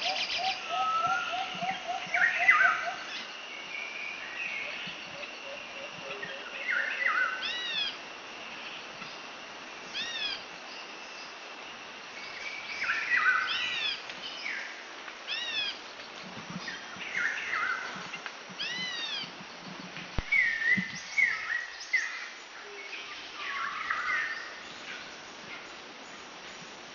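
Songbirds calling and chirping, with a short arched whistled note that repeats every two to three seconds among other chirps and a fast trill in the first few seconds.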